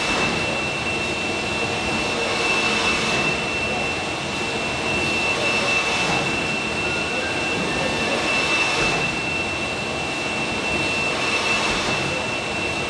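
High-speed top-loader pick-and-place robot running its cycle: a steady machine hiss with a constant high whine, swelling about every three seconds as it repeats its moves.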